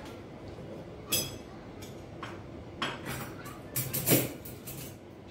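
Cutlery clinking as pieces are set into holders on a table: a handful of separate clinks, the loudest about four seconds in.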